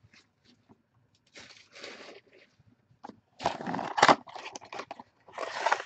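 A cardboard trading-card box and its wrapping being handled and opened: short bursts of scraping and crinkling, the loudest about four seconds in.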